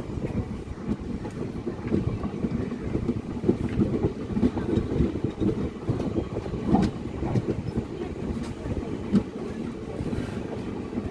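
Passenger train coach rolling slowly along the rails while pulling out of a station: a steady low rumble from the wheels, with irregular clicks and clanks.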